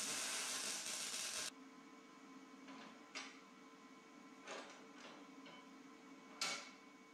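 Wire-feed (MIG) welder arc crackling steadily during a tack weld on steel, cutting off suddenly about a second and a half in. Then three faint knocks follow as the welded steel frame is handled.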